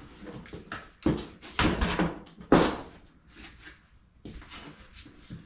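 A run of knocks and thumps, the loudest about two and a half seconds in, with lighter clicks after.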